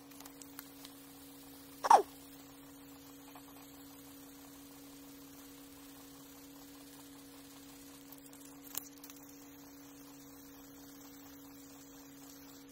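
Sandpaper rubbing faintly over a carved Japanese red oak shift knob held in the hand, under a steady low hum. About two seconds in comes one short, sharp sound that drops in pitch, much louder than the rest, and near nine seconds a small click.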